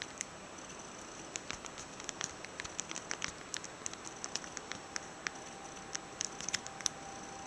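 Irregular light clicks and crackles, several a second, over a faint steady hiss.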